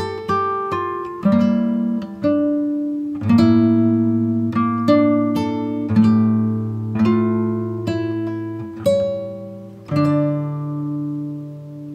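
Background music: acoustic guitar chords plucked about once a second, each ringing out, with a longer-held chord near the end.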